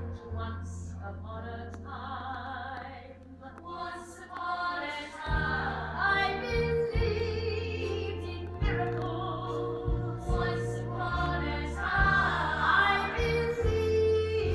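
Stage song: voices singing long held notes over music with a sustained bass line.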